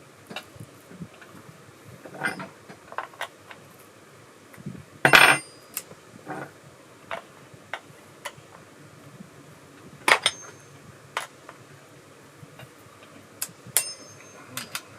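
Metal tools and chainsaw parts clinking and knocking as they are handled while fitting the bar and chain. Scattered clicks throughout, with a louder clatter about five seconds in and ringing metallic clinks about ten and fourteen seconds in.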